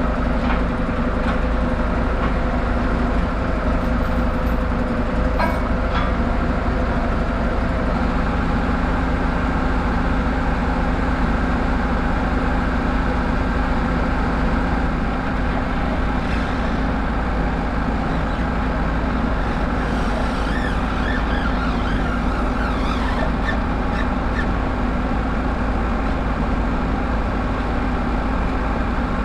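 Wood-Mizer LT15 Wide portable band sawmill running steadily while it saws a white oak log, its engine and band blade making a constant even drone.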